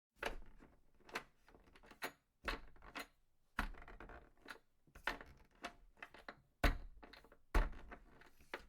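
Irregular knocks and clicks, about a dozen over several seconds, like objects being handled; the two loudest come in the second half.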